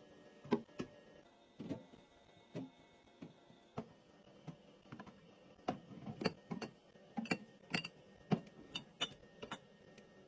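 Irregular clicks and knocks of containers and groceries being handled and set down while restocking and organizing a kitchen, coming faster and louder in the second half.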